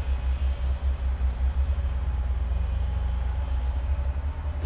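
Hydraulic excavator's diesel engine running steadily under load as it works, a low pulsing rumble. A sharp clank comes right at the very end.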